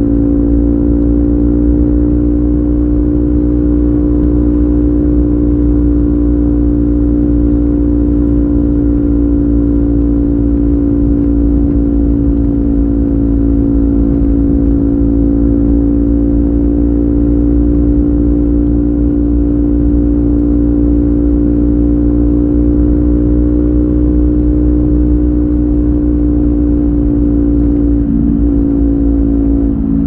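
Kawasaki Ninja 400's parallel-twin engine running through an Akrapovic carbon slip-on exhaust with its dB killer removed, holding steady revs at expressway cruising speed. The pitch stays level throughout and wavers briefly near the end.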